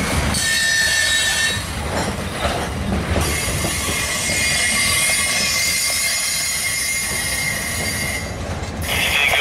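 Freight train's gondola cars rolling slowly past, steel wheels squealing against the rail in a steady high tone over a low rumble of wheels on track.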